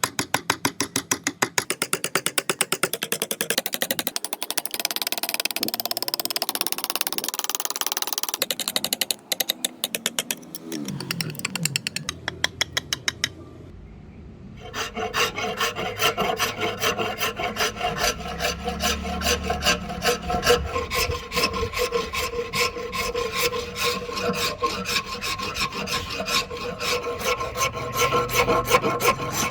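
Quick, even scraping strokes of a hand tool, in the manner of filing or rasping, repeated many times a second. The sound breaks off briefly a little before halfway. The strokes then resume with a steady ringing note running under them.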